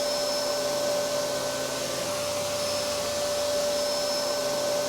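Hoover Dustmanager upright vacuum cleaner running steadily, a constant tone over the rush of air, switched on to check that the belt turns the brush bar.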